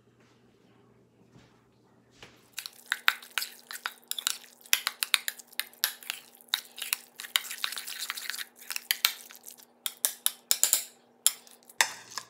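Metal spoon stirring a wet chopped-tuna mixture in a ceramic bowl, clinking quickly and repeatedly against the bowl. The stirring starts a couple of seconds in and stops just before the end.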